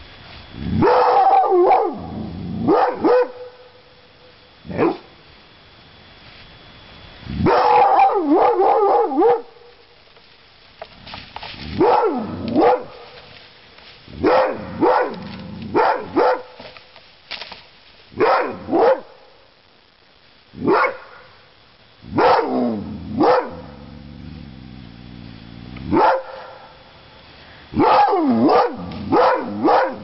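Dog barking over and over in short bursts of one to several barks, every couple of seconds.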